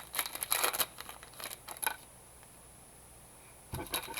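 Trading cards being handled and flipped through, with a run of quick rustles and clicks for about two seconds. A short bump follows near the end.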